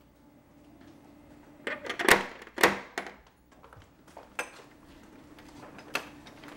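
Knocking on a front door: a quick run of sharp knocks about two seconds in, then a click of the doorknob being turned near the end.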